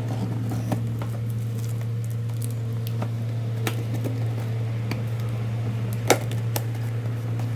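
A cardboard parcel being opened and its packing handled: scattered crackles and clicks, the sharpest about six seconds in, over a steady low hum.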